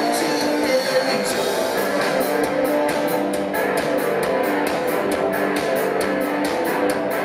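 Live rock band playing an instrumental passage, electric guitar to the fore over steady, regularly struck cymbals, heard loud through the club's sound system from the crowd.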